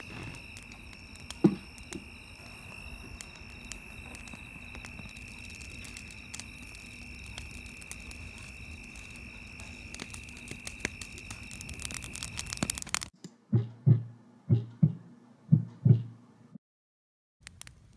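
Film sound design: a steady high-pitched drone over low hiss, with one sharp thump about a second and a half in. About thirteen seconds in it cuts off abruptly, and three pairs of low, muffled heartbeat thuds follow.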